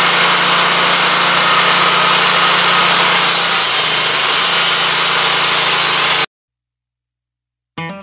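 Woodmizer LT15 Go portable band sawmill running, a loud steady noise with a steady hum underneath. It cuts off abruptly about six seconds in, and after a short silence guitar music starts near the end.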